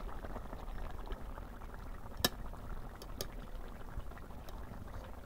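Thin fish curry bubbling at a steady boil in a pan, nearly ready. A sharp click a little over two seconds in and a fainter one about a second later.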